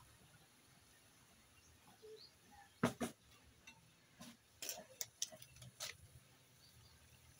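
Fire in a small metal cookstove crackling under a wok of vegetables: a handful of sharp, irregular cracks and pops between about three and six seconds in, the first the loudest.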